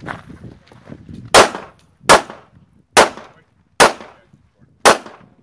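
Pistol fired five times in a steady string, one shot roughly every second, each a sharp crack with a brief echo.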